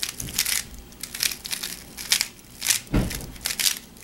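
Plastic layers of a MoYu Aolong v2 3x3 speed cube turning rapidly: a quick, irregular run of clicks and clacks as the Ja-perm algorithm is executed, with a heavier knock about three seconds in.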